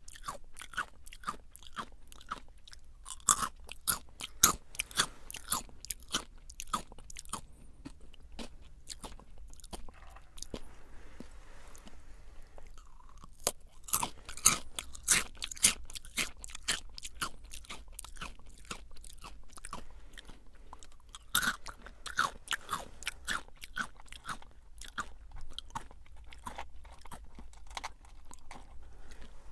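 Jagarico crunchy potato sticks being bitten and chewed close to the microphone: rapid crisp crunches that thin out to quieter chewing about a third of the way in, then pick up again with fresh bites.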